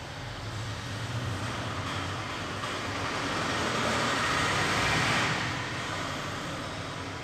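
A passing vehicle's rumbling noise that builds to a peak about five seconds in and then fades away.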